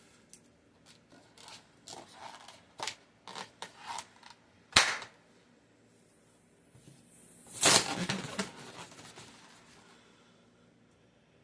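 Balloons being handled, with a run of short rubbery squeaks and clicks, then one sharp, loud pop about five seconds in. A longer, louder burst of noise follows near eight seconds and fades over a second or so.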